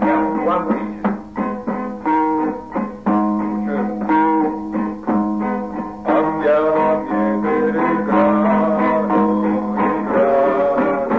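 A folk song played on acoustic guitar, strummed in a steady rhythm. A voice starts singing about six seconds in, over the guitar.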